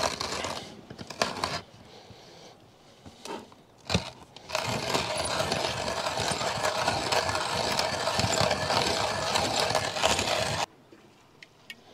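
Coffee grinder grinding beans for about six seconds and then stopping abruptly, after a few seconds of scattered clicks and a single knock from handling.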